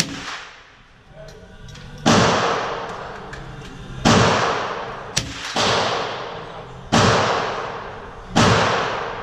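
Sig Sauer 522 SWAT .22 LR semi-automatic rifle fired slowly, one shot at a time: about six cracks, spaced roughly one and a half to three seconds apart, each trailing off in a long echo under the range's roof. A thinner, sharper crack falls just before the fourth shot.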